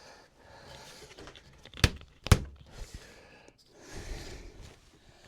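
Two sharp knocks about half a second apart, wooden gate spindles being tapped home into the rail during a dry fit, with quieter rubbing and scraping of wood on wood around them.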